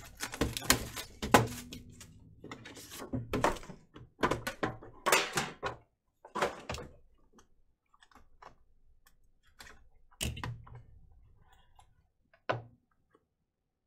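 Hands unwrapping and opening a shrink-wrapped cardboard trading-card box: a busy run of rustling scrapes and crinkles for the first six seconds or so, then quieter handling of the cardboard. A knock comes about ten seconds in and a sharp tap near the end.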